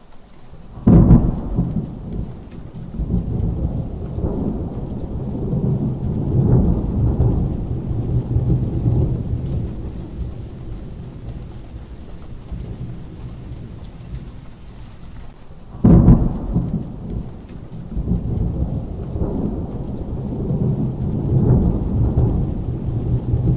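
Thunderstorm: two sudden thunderclaps, about a second in and again about sixteen seconds in, each followed by long, low rolling rumbles, over steady rain.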